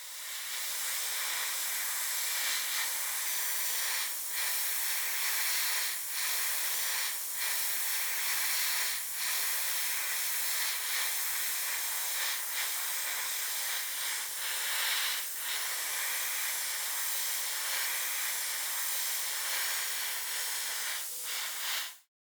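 Paint spraying onto a model car part: a steady hiss, briefly broken by short gaps every few seconds.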